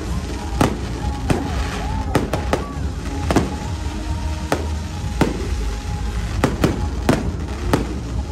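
Aerial firework shells bursting overhead: about a dozen sharp bangs at uneven intervals, over music playing for the pyromusical display.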